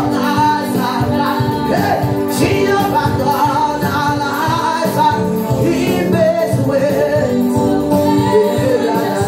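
Live gospel praise music: a woman singing lead into a microphone over sustained keyboard chords and percussion.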